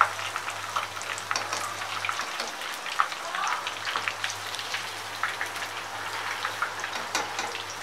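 Batter-coated fish pieces deep-frying in hot oil in a kadhai on a high flame: a steady sizzle with many small crackles and pops.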